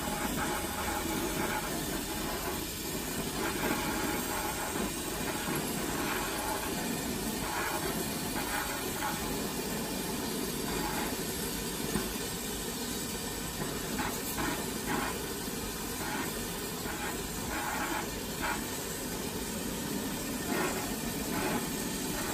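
Glassblower's bench torch burning with a steady hiss of gas flame while glass is worked in it.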